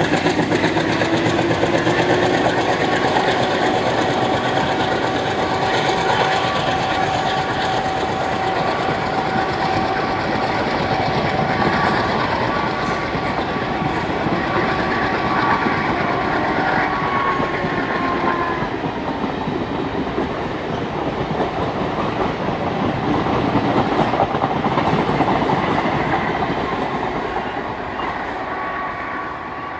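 Passenger coaches rolling past at speed, wheels clattering over rail joints, with a steady whine that slides down in pitch a little past halfway. The sound fades as the train draws away near the end.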